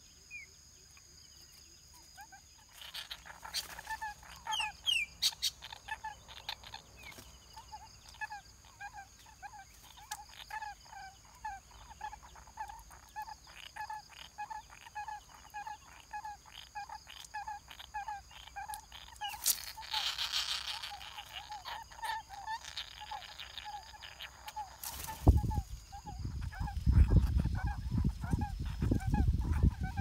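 A bird calls a short note over and over, about two a second, with a few higher, sharper bird calls mixed in. For the last few seconds, heavy wind buffets the microphone with a loud low rumble.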